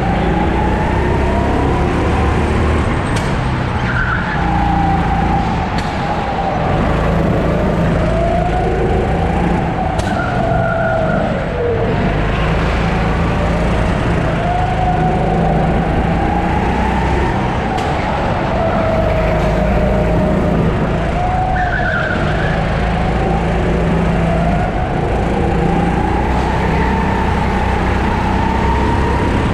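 Sodi 270cc four-stroke go-kart engine revving up and falling back over and over as the kart accelerates out of corners and lifts into them. Brief tyre squeals come three times as the kart slides through corners.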